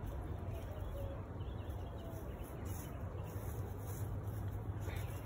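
Quiet outdoor background: a steady low rumble, with a few faint short high notes near the start.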